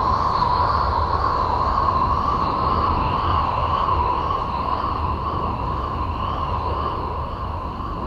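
Voyager 2's recording of Uranus converted to sound: a continuous droning hiss centred on a bright mid-pitched band, with faint higher tones that waver slowly and a low rumble beneath, easing gradually in level.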